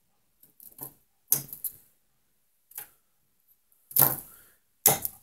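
Small metal scraps clicking and clinking as steel bits from the aluminium dross snap onto and are pulled off a pot magnet: a handful of sharp separate clicks, the loudest about a second in, at four seconds and near the end.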